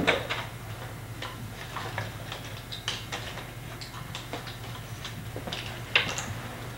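Cardboard jigsaw puzzle pieces clicking and tapping on a tabletop as they are handled and set down: small irregular clicks, the sharpest about six seconds in, over a steady low hum.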